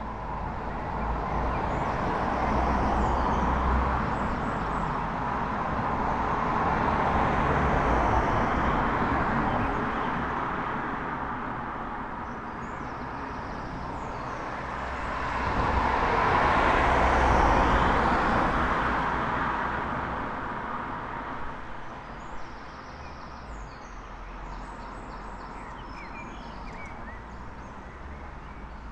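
Cars passing along a street one after another: three swells of tyre and engine noise that rise and fade away. Small birds chirp in the background, clearest near the end once the traffic has died down.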